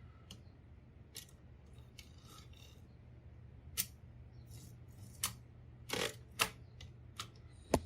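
Royal Quiet DeLuxe portable typewriter's magic margin lever and carriage being worked to reset the margin: scattered sharp mechanical clicks with light scraping, coming closer together in the second half.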